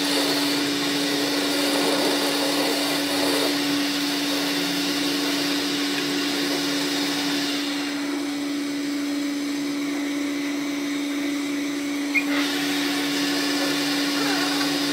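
Metal lathe running with a steady motor hum and a hiss while a turning tool cuts a metal workpiece. About eight seconds in the higher hiss drops away, then returns after a short click some four seconds later.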